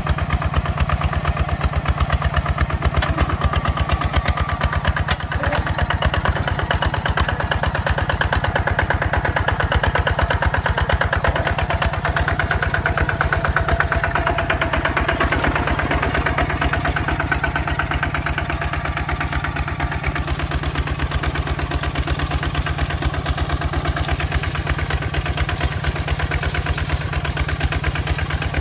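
Tractor's diesel engine running steadily with a fast, even chugging.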